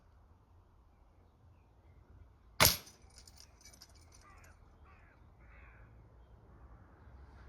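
An air rifle fires once, a single sharp shot about two and a half seconds in. A bird calls three times shortly after.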